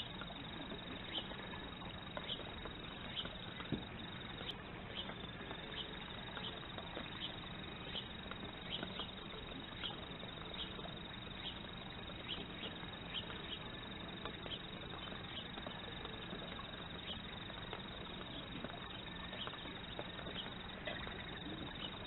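Short, high bird chips repeating irregularly over a steady background hiss.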